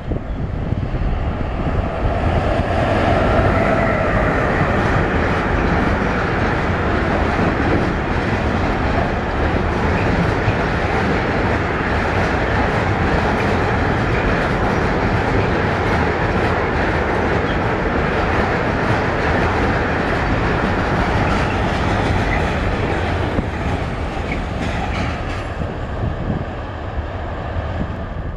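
Intermodal freight train hauling semi-trailers on low rail wagons passes through at speed, with steady wheel-on-rail rumble and clickety-clack over the joints. A whine stands out a few seconds in, and the noise fades near the end.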